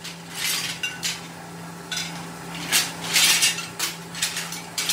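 Pieces of scrap metal clattering and clinking as they are picked off a pile and dropped into a metal tray, in a string of separate clanks with a busier burst in the middle. A steady low hum runs underneath.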